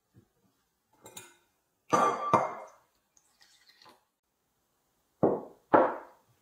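Glass mixing bowl clinking as the spatula and a glass measuring jug knock against it while flour and water are stirred into a dough. Two clinks about two seconds in, the first ringing on, and two more duller knocks near the end.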